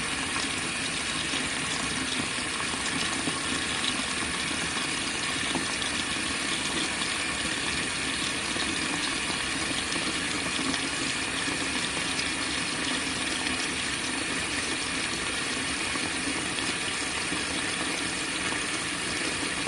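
Steady rush of water running into an RV washing machine's tub as it fills.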